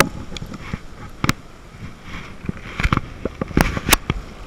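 Clothing rubbing and knocking against a body-worn camera: a string of sharp clicks and knocks, the loudest a little after one second and a cluster near the end, over a low wash of surf.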